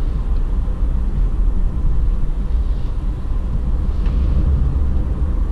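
Steady low rumble of a car driving at road speed, heard inside the cabin: engine and tyre noise.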